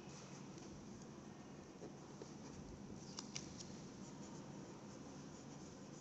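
Pen writing on paper: faint scratching strokes, with a few small ticks about three seconds in.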